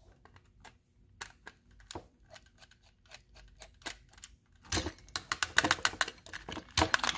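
Small screwdriver turning screws in the plastic body of a Tomy toy steam locomotive: scattered light clicks and ticks, with bursts of rapid clicking about two-thirds of the way through and again near the end.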